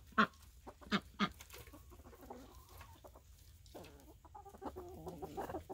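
Chickens clucking: a few short, sharp clucks in the first second and a half, then softer, steady clucking from the flock.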